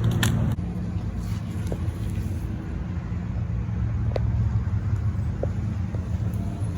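A car engine idling steadily, with a few faint clicks.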